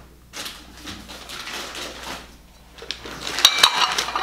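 Newspaper wrapping crinkling and rustling as an item is unwrapped by hand, soft at first and loudest in the last second.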